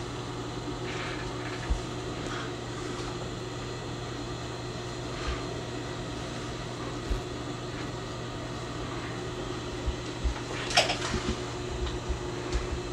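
Steady low mechanical room hum, with soft rustles and light bumps from pleated drapery fabric being handled; the clearest rustle comes near the end.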